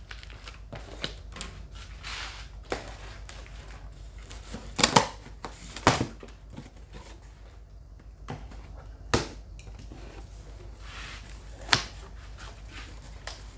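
Cardboard shipping box being opened by hand: scraping and tearing as the tape is cut and the flaps pulled back, broken by several sharp cardboard knocks.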